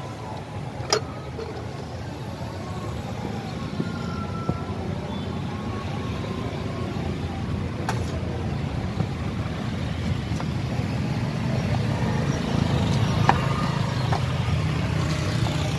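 Road vehicle engine and road noise, a steady low rumble that grows slightly louder, with a few sharp clicks.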